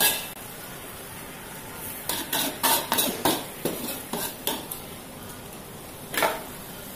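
A metal spatula scrapes and clatters against an aluminium wok as shrimp, egg and greens are stir-fried, over a steady sizzle of frying. There is a stroke at the start, a run of quick strokes about two to three a second beginning about two seconds in, and one more stroke near the end.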